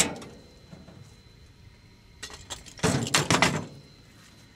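A metal truck-mounted toolbox unlatched and opened with a sharp clank, then metal parts clanking and rattling inside it as a heavy metal fitting is pulled out.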